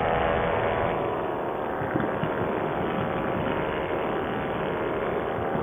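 Nitro 200 paramotor's two-stroke engine running steadily at cruise power in flight.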